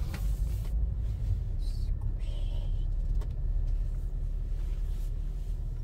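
Car cabin noise while riding in a car: a steady low rumble of engine and tyres, with a brief hiss right at the start.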